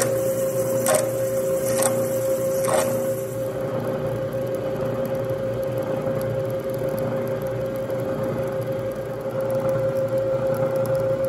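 Bridgeport milling machine spindle running with a steady whine while drilling and counterboring a metal jaw plate. Sharp ticks come about once a second in the first three seconds, then the cutting noise goes on more evenly.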